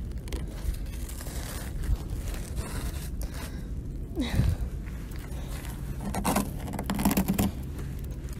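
A hand scraping and brushing granular ice and snow on a car's windshield, with scratchy, crunching noises over a steady low rumble.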